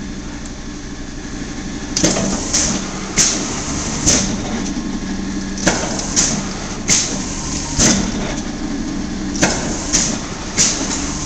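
90-ton Chicago Dreis & Krump press brake running with a steady hum, its ram cycled from the two-hand run buttons. About two seconds in the hum grows louder, and a series of about eleven sharp clanks follows, some in quick groups of three.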